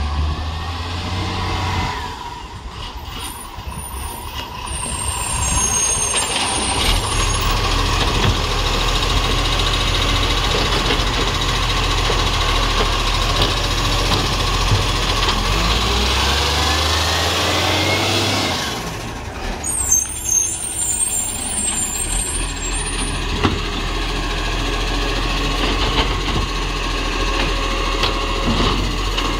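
Side-loader garbage truck's diesel engine running as it pulls up and works its automated bin-lifting arm, with air-brake hiss. About halfway through, the engine rises in pitch as the arm lifts the bin.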